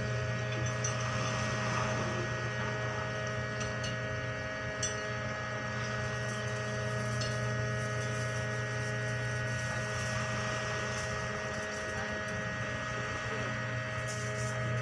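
Steady drone of a tanker's machinery running during liquid cargo discharge: a constant low hum with several steady higher tones over it, unchanging throughout.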